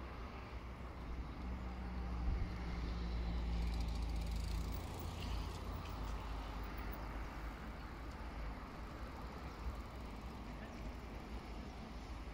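A motor vehicle's engine hum that swells about two seconds in and fades a few seconds later, over steady outdoor background noise.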